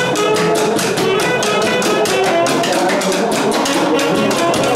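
Live band music: saxophones playing a melody over a steady, fast drum beat.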